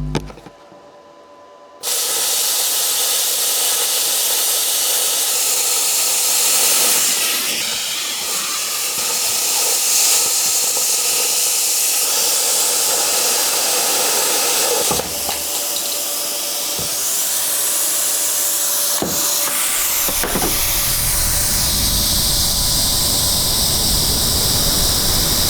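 Titanium Plasma 45 plasma cutter running on a chainsaw chain: a loud, steady hiss of air and arc that starts suddenly about two seconds in, with brief breaks around fifteen and nineteen seconds. A low rumble joins the hiss about twenty seconds in.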